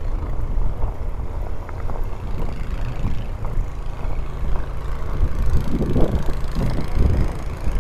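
Low, steady rumble of passing city street traffic.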